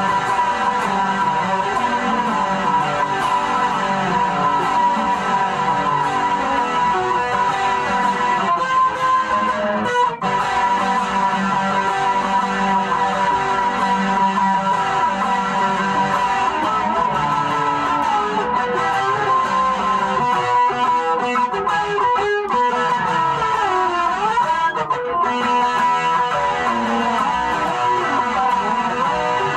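A six-string guitar played without pause: a tune of picked notes and runs, with a few sliding notes near the end.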